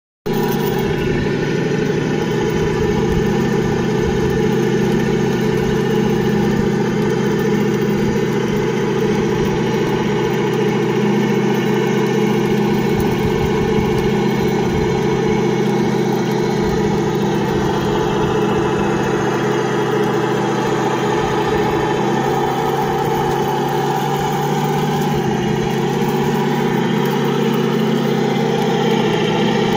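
Large radio-controlled model Sherman Firefly tank running and manoeuvring, with a steady engine-like idle sound. The pitch shifts slightly about two-thirds of the way through.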